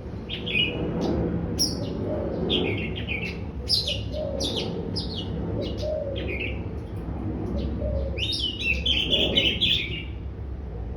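Oriental magpie-robin singing, a male just coming into breeding condition: bursts of varied, quick whistled and chattering phrases with short pauses between them, the fullest burst near the end.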